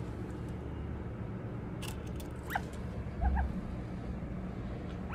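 A pet bird giving a few short chirps, one sliding down in pitch, over a steady low hum, with a soft low bump about three seconds in.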